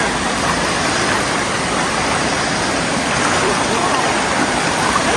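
Shallow, fast-flowing stream rushing over rocks: a steady, loud rush of water.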